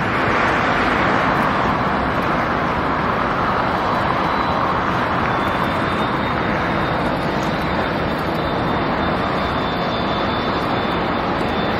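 British Airways Airbus A380-800's four Rolls-Royce Trent 900 turbofans on final approach: a steady jet rush with a thin, high fan whine held over it.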